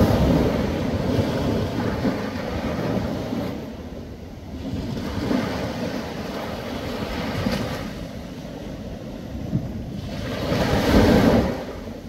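Small ocean waves washing onto a shore, the surf swelling and easing in turn, with the loudest wash near the end.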